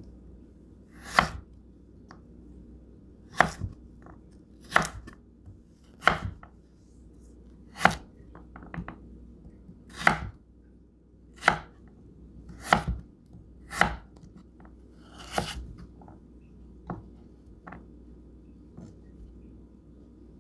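Victorinox 8-inch chef's knife chopping carrot sticks on a wooden cutting board: a crisp knock as the blade meets the board with each stroke, about a dozen strokes, roughly one every one to two seconds. The chopping stops a few seconds before the end, leaving only a few faint taps.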